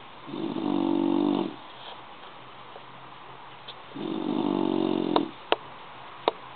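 Sleeping bulldog snoring: two long snores, one near the start and one about four seconds in, followed by a few short sharp clicks.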